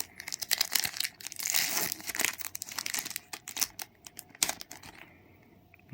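Plastic foil trading-card pack being torn open and its wrapper crinkled: a dense crackle with sharp snaps that dies down about four and a half seconds in.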